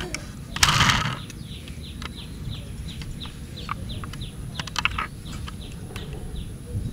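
A red plastic toy semi-truck cab being handled and turned over, giving light plastic clicks and a loud rustle about a second in. A bird chirps repeatedly in the background with short falling notes.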